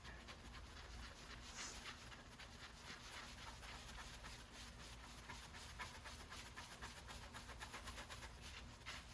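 Faint, steady scrubbing of a small polishing pad worked in circles over a rain guard with rubbing compound, a quick run of light swishing strokes.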